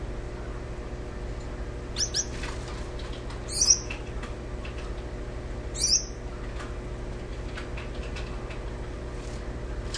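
Gouldian finches giving short, high calls: a quick pair about two seconds in, then single calls near four and six seconds. A steady low hum runs underneath.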